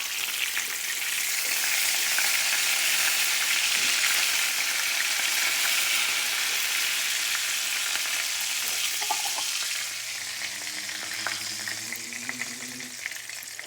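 Breaded steaks frying in hot peanut oil: a steady sizzle with fine crackling. It eases a little near the end, when a faint low hum comes in underneath.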